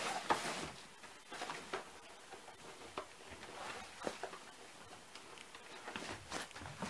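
Faint, scattered light clicks and short rustles of cardboard and plastic toy packaging being handled, a few seconds apart.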